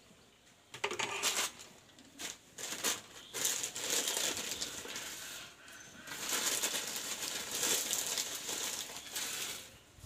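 Crinkly plastic packet of vermicelli (semai) rustling in the hands in irregular bursts from about a second in, with dry vermicelli being broken up.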